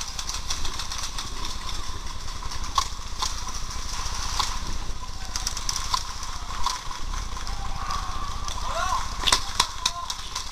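Paintball markers firing in scattered single pops, over a low rumble, with distant voices calling near the end.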